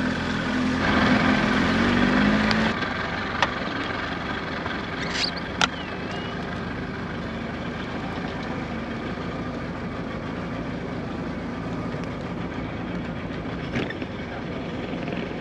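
A fishing boat's engine running under way with wind and water noise, then after an abrupt change about three seconds in, idling low and steady as the boat creeps along a dock. A few short sharp clicks sound over the idle.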